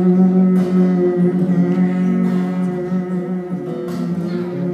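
Solo acoustic guitar playing, chords strummed and left ringing.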